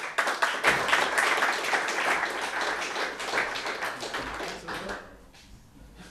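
Audience applauding: a dense patter of many hands clapping that swells at once, then thins out and dies away about five seconds in.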